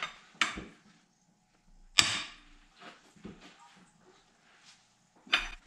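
A sharp crack about two seconds in as a tight bolt on the tractor engine breaks loose under a long breaker bar, with lighter clicks and knocks of the tool before and after.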